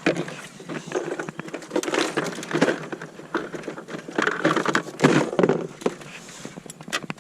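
Irregular rustling and crackling with many scattered clicks and knocks, louder in a few clusters.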